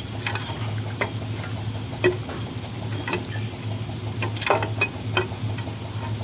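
Scattered light clicks and knocks of an upper intake crossover tube being worked and wiggled down into its opening on a diesel engine, with a small cluster of knocks past the middle. A steady low hum and a constant high-pitched tone run underneath.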